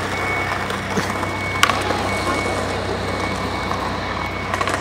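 Street noise: a thin, steady high-pitched tone that cuts out twice and comes back, over a low steady hum. One sharp clack about a second and a half in.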